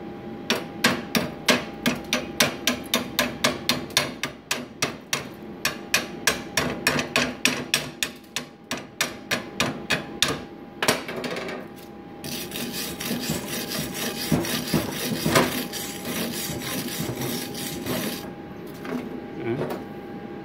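Steel chipping hammer tapping the slag off a freshly laid LB-52U stick-weld bead on steel strip, about four quick metallic blows a second for some ten seconds. Then a steady scraping over the weld for about six seconds as it is cleaned.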